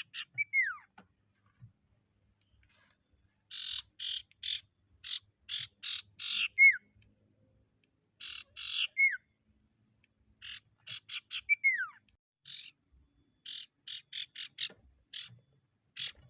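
Common iora (sirtu) singing: runs of quick, harsh chattering notes, four of them ending in a single falling whistle, with short pauses between.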